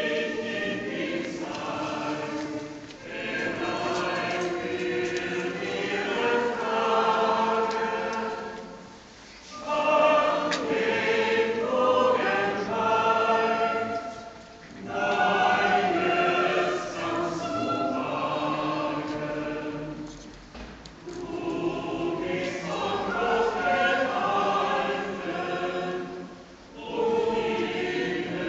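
Many voices singing a hymn together in sung phrases, with short breaks between phrases about every six seconds.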